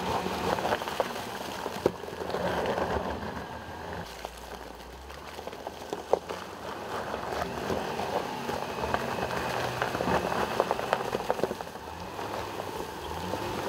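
Range Rover Supercharged's tyres squelching and crackling through mud and flattened dry grass at a slow crawl, a dense patter of small clicks and pops, with the engine running low and steady underneath.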